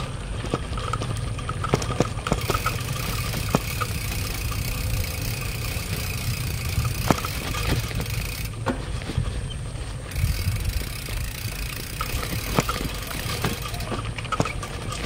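Bicycle rolling over a bumpy dirt track: a steady low rumble of tyres on dirt, with frequent short rattles and knocks as the bike jolts over bumps.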